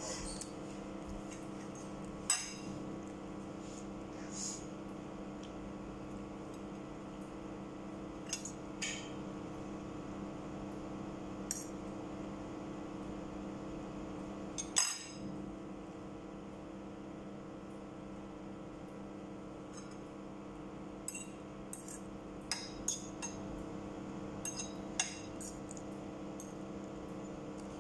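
A metal fork clinking and scraping against a plate of noodles now and then, the loudest clink about halfway through and a quick run of clinks near the end, over a steady low hum.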